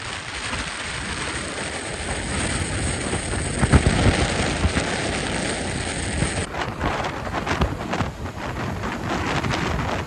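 Wind buffeting the microphone of a camera on a motorcycle riding at highway speed, a dense rushing noise that swells and drops in gusts, with a couple of heavy thumps about four seconds in.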